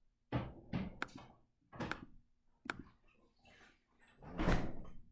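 Household knocks and thunks, about five sharp ones in the first three seconds, then a louder, longer noisy sound about four and a half seconds in.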